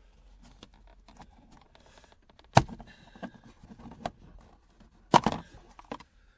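Light clicks and rattles from handling a car trim panel and its snap clips, with two sharp knocks about two and a half seconds apart.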